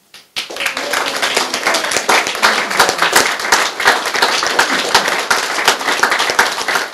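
A group of people clapping and applauding: dense, fast clapping that starts suddenly just after the start and keeps going.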